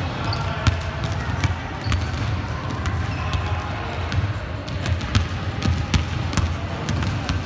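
Basketballs being dribbled on a hardwood gym floor: irregular, overlapping bounces from more than one ball, sounding in a large echoing hall.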